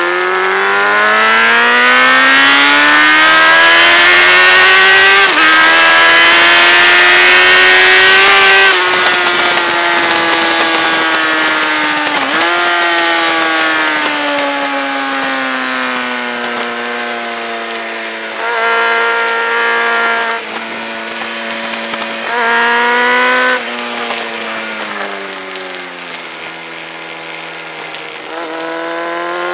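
Motorcycle engine driven hard on track: revs climb with an upshift about five seconds in, then fall under braking with a downshift near twelve seconds. Two short louder throttle bursts come around nineteen and twenty-two seconds, and the revs rise again near the end.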